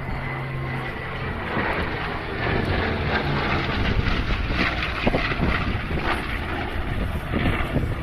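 Propeller aircraft engine running steadily as the plane flies past.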